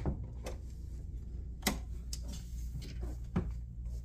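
A handful of short, soft knocks and clicks at irregular spacing, about six in all, over a low steady hum.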